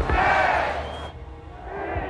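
Film soundtrack: a crowd shouting and cheering over music, loudest in the first second and then dying down.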